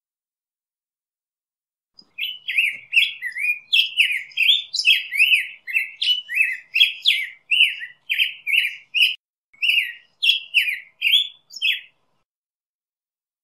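Black-headed grosbeak singing: a long run of short warbled notes, each sliding up and down, two or three a second for about ten seconds, with a brief break near the end.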